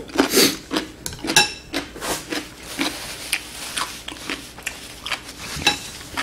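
Close-miked eating sounds: a run of short, irregular wet mouth clicks and smacks from chewing, with a few light clinks of chopsticks against the dishes.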